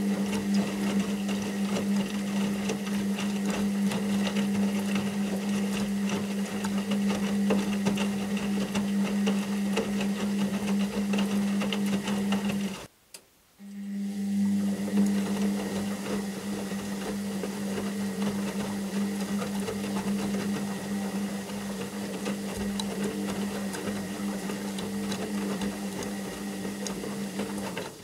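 Washing machine running with a steady low hum and a whirring, rattling noise above it. About halfway through it stops almost completely for about a second, then starts up again.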